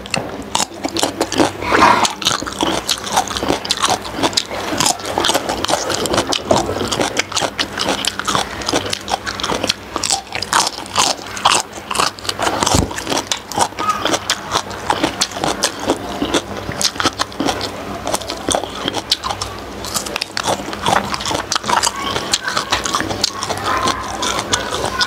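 Close-miked eating: biting and chewing with many short crunches and wet mouth clicks, as a person eats crisp winged beans and soft steamed pork skin.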